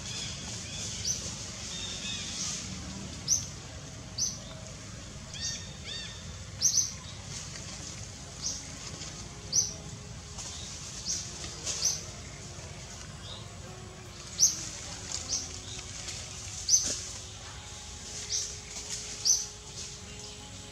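Short, high bird chirps repeating irregularly, about one every second or so, over a steady background hiss.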